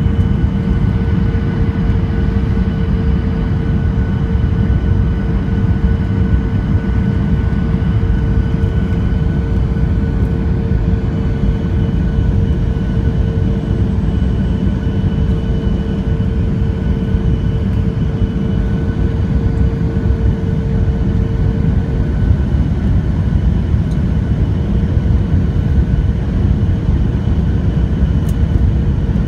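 Jet airliner cabin noise in flight: the loud, steady rumble of the engines and rushing air, with a steady hum running through it.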